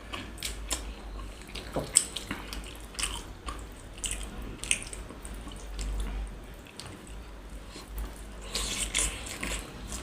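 Close-up eating sounds of momos being eaten: wet chewing with many short, irregular mouth smacks and clicks.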